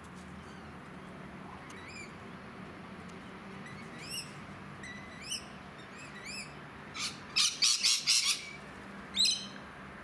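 Rainbow lorikeets calling in a palm tree: a string of short rising chirps, then a cluster of loud, harsh screeches about seven seconds in and one more loud call near the end.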